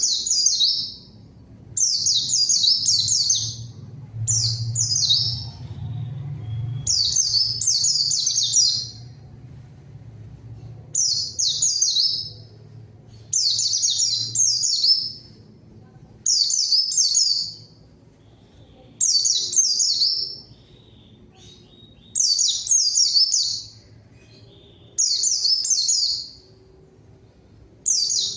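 A white-eye (pleci) singing hard in a repeated pattern. Each rapid, high twittering phrase lasts about a second and they come every two to three seconds. This is the steady, full-voiced 'gacor' song of a bird calling out to a rival.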